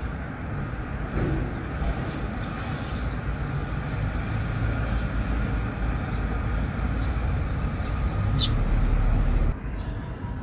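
Steady street traffic rumble with a few short, high chirps of Eurasian tree sparrows, the clearest one about eight seconds in. The rumble drops suddenly near the end.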